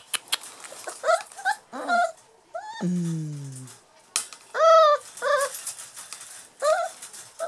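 Six-week-old puppies whining and yipping in short, high-pitched arched cries, over and over. Sharp clicks come as they paw and jump at the bars of the wire pen, and about three seconds in there is one lower, drawn-out cry that falls in pitch.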